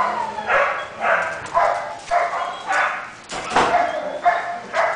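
A dog barking repeatedly, high-pitched barks coming about two a second.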